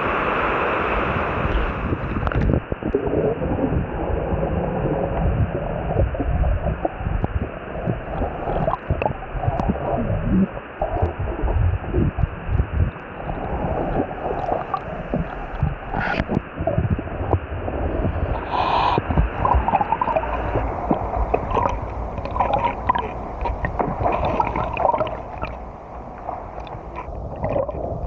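A person swimming, with water splashing and gurgling close around the camera, muffled and full of irregular sloshes and knocks. It is loudest right at the start, as he goes into the water.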